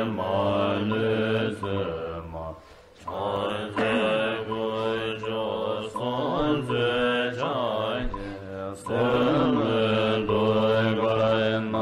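A Buddhist mantra chanted to a melody in long, pitched phrases. The chant breaks off briefly about three seconds in and again near eight seconds.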